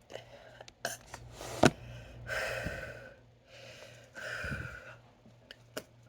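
A woman's breathing: two long, audible mouth breaths about two seconds apart, with a couple of short sharp clicks before them and a few faint ones near the end. This is a pause between burps.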